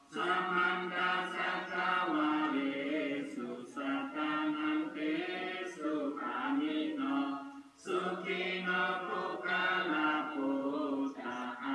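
A group of men and women chanting Buddhist prayers in unison from prayer books, on a steady reciting pitch, with a short pause for breath about eight seconds in.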